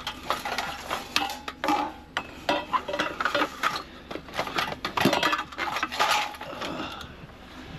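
Sheet-metal fluorescent light fittings being shifted around in a scrap pile, clattering and clanking in a run of irregular knocks and rattles.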